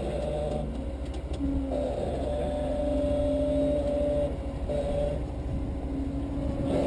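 Off-road vehicle's engine working under load at crawling speed, its note stepping up and down as the throttle is eased on and off.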